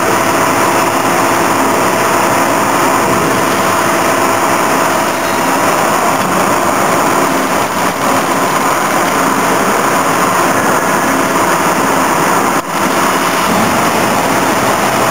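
Horizontal two-head riveting machine running: a loud, steady machine whir with several constant hum tones, dipping briefly once late on.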